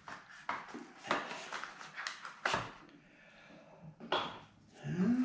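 Packaging and small camera accessories being handled: rustling with irregular clicks and a few sharper knocks as items are set down.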